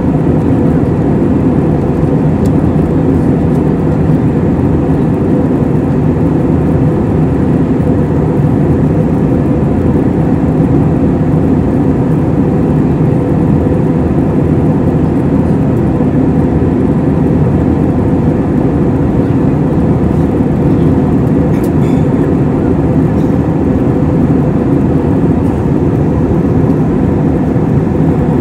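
Steady cabin noise inside an Airbus A321-231 in flight: an unbroken low rumble of its IAE V2500 engines and rushing airflow, with a faint steady hum.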